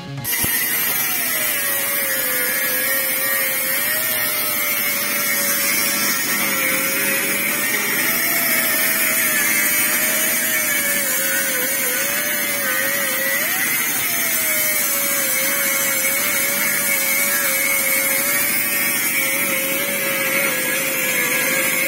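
Handheld angle grinder grinding metal: a steady hiss of disc on metal under a motor whine that wavers and dips in pitch as the disc is pressed into the work.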